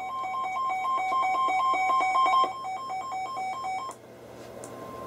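Weather radio receivers sounding their alert alarm: a rapid high-low two-tone beeping that grows louder and stops about two and a half seconds in, with fainter beeping going on until about four seconds. Then a single steady tone, the NOAA Weather Radio 1050 Hz warning alarm tone, starts and grows louder. It signals that a warning is about to be read.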